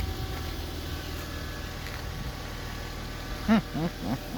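Volvo XC90 3.2 straight-six engine idling steadily. Near the end a dog whines a few times in short rising-and-falling cries, the loudest sounds here.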